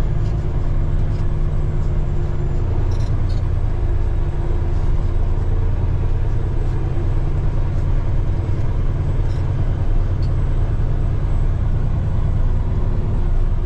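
Peterbilt 389 semi truck's diesel engine heard from inside the cab, pulling steadily under load as the truck climbs a steep gravel grade with the power divider locked in; a deep, even drone with no change in engine speed.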